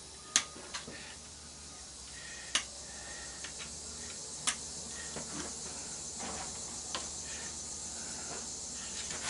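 A few sharp clicks and light metallic ticks of hand tools on the stripped chassis of a CRT monitor. The three loudest are spread a couple of seconds apart, over a steady high hiss.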